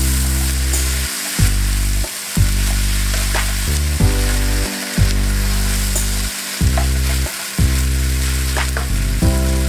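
Fried rice with shrimp and frozen peas sizzling in a frying pan as it is stir-fried, a steady hiss. Background music of held low notes that change about once a second runs under it.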